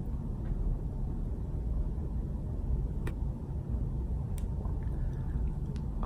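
Steady low rumble of room noise with a few faint clicks scattered through it, and no voice.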